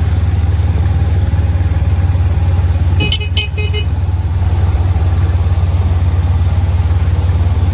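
A motor vehicle's engine idling steadily close by, with a high-pitched horn giving a few short beeps about three seconds in.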